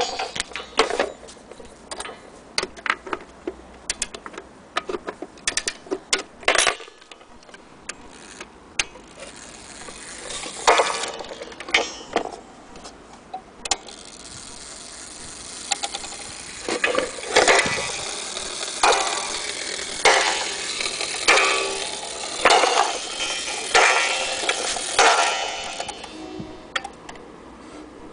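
Vintage FHS wall clock movement being handled and set: clicks and knocks of the hands and case, then from about 17 s seven evenly spaced strikes about 1.3 s apart, each dying away, the movement striking on its coil gong.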